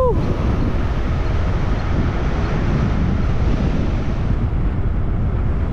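Wind buffeting an action camera's microphone: a loud, steady rush that is heaviest in the low end.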